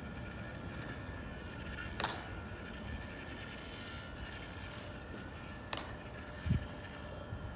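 Two sharp clicks nearly four seconds apart from the tomb guards' ceremonial drill, over steady wind noise, with a dull thump near the end.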